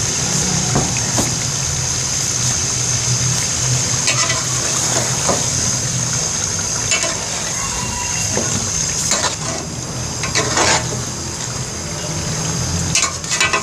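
Mutton curry sizzling and bubbling steadily in an aluminium pot, with a metal spatula scraping and knocking against the pot several times as it is stirred.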